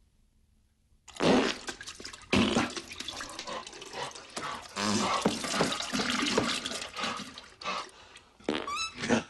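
Loud wet toilet noises: splashing, gushing water in a toilet bowl, starting suddenly about a second in after near silence and going on in uneven surges, with a few short rising squeaks near the end.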